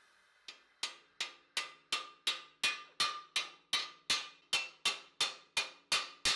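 Hand hammer striking a red-hot steel cuirass plate over an anvil stake: a steady run of metallic blows, about three a second, each ringing briefly.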